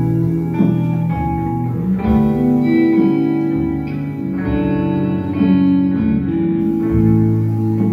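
Live band playing: electric guitars holding long, overlapping notes over bass guitar and drums, with a few sharp drum hits.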